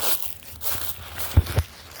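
Footsteps of a person walking, each stride a short scuffing crunch, with two quick low thumps on the microphone about one and a half seconds in.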